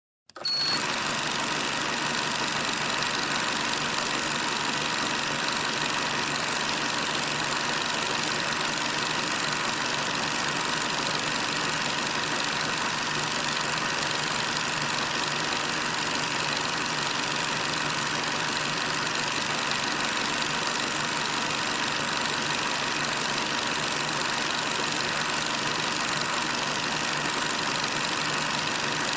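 Steady, unchanging hiss with a constant hum, starting about half a second in; no music, speech or marching sounds come through.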